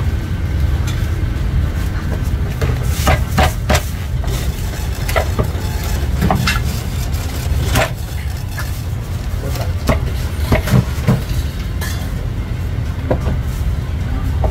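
Heavy cleaver chopping through roast goose onto a thick wooden chopping block: sharp knocks at irregular intervals, some in quick pairs. A steady low rumble lies under them.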